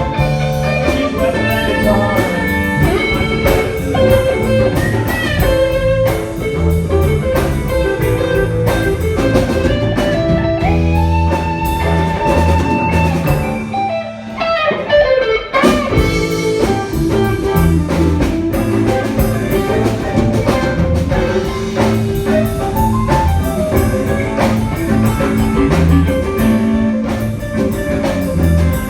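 Live band playing a blues-rock piece: electric guitar over a drum kit with steady beats and sustained, bent guitar notes. There is a short break about halfway through before the band comes back in.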